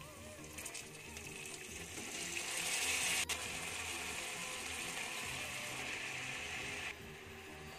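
Pan sizzling as boiled, wet radish greens go into the onion-and-chilli seasoning already fried in oil. The hiss swells about two seconds in, holds steady, and cuts off sharply near the end.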